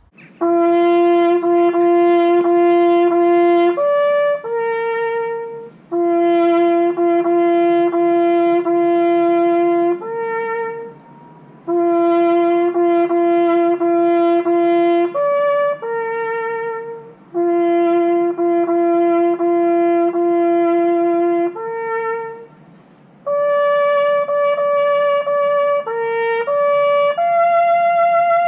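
Solo trumpet playing a slow ceremonial call: each phrase opens with a long held low note followed by shorter, higher notes, some with vibrato. The phrase comes round four times with short breaks, then a closing phrase on higher notes.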